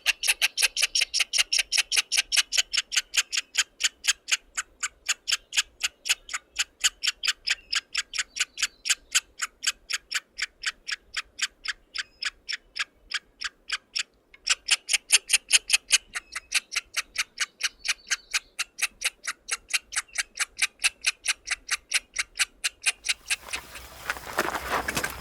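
A bird giving a long series of short, high, sharp call notes in an even rhythm of about five a second, pausing briefly about fourteen seconds in. Near the end the calls stop and a lower, rougher rustling sound takes over.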